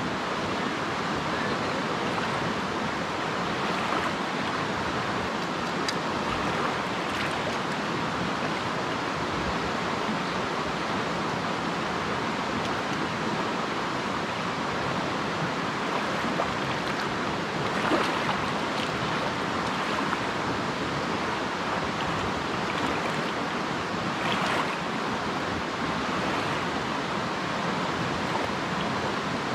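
A swollen river rushing, an even, steady hiss of water, with a couple of brief louder sounds past the middle.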